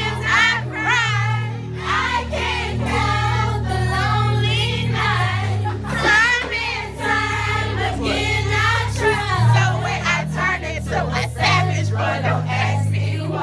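Several young women singing along together over a music track with a steady, changing bass line.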